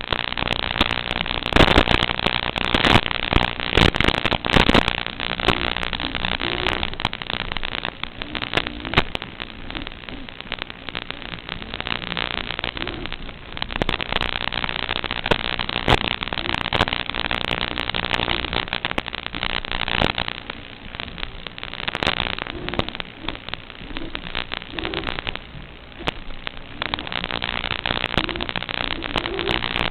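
Loud, crackling static with a steady low hum, the audio of a quadcopter's analog FPV video link as recorded by the goggles' DVR, with sharper crackle bursts around two and four seconds in.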